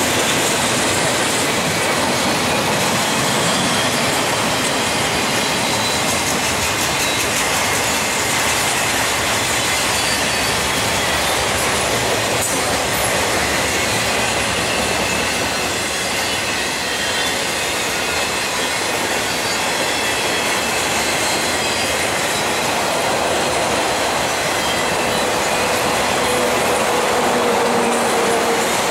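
Norfolk Southern intermodal freight train of double-stack well cars and trailer flatcars rolling past close by: a steady rumble of steel wheels on rail, with faint high squealing tones from the wheels.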